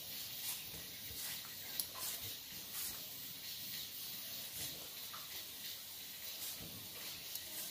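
A raw potato being peeled by hand: short, soft scraping strokes over a steady hiss.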